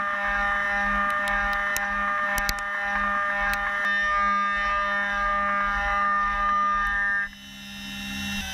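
Five-axis CNC machining centre milling a metal workpiece: a steady high whine of the spindle and cutter, several tones at once, over a lower hum that pulses regularly, with scattered sharp ticks of flying chips. About seven seconds in, the whine stops abruptly and the sound drops, then builds again.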